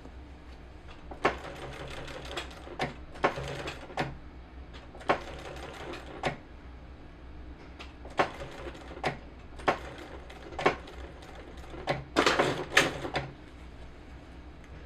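Sewing machine stitching in a series of short bursts and single clicks, a few stitches at a time, with its longest run near the end, as a replacement zipper is sewn into a jacket.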